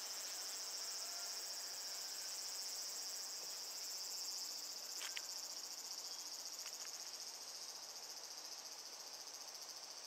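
Insects trilling steadily in a high, continuous chorus, with two faint short ticks about halfway through.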